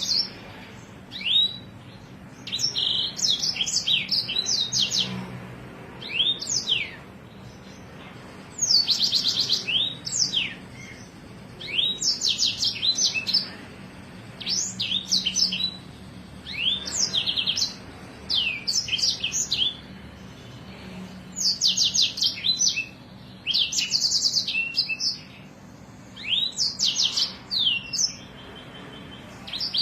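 A songbird singing in repeated phrases a second or two long, every couple of seconds: rapid high trills mixed with quick downward-sweeping whistled notes.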